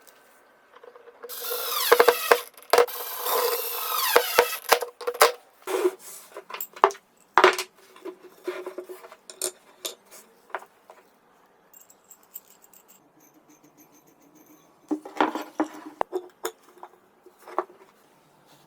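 Wood being worked by hand: a burst of squeaky scraping and rubbing with sharp knocks over the first several seconds, then scattered clicks, and a second shorter bout of scraping near the end.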